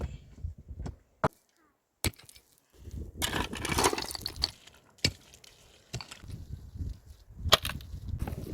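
A series of sharp knocks and cracks, a second or more apart, with a longer noisy scraping stretch in the middle; the sound drops out briefly near the start.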